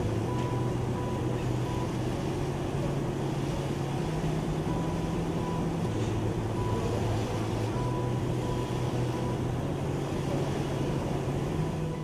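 Steady mechanical hum of a motor, a low droning tone that steps slightly up in pitch now and then.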